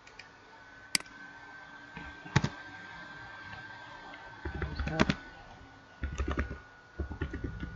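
Typing on a computer keyboard: a few single sharp clicks, then quick runs of keystrokes from about halfway through.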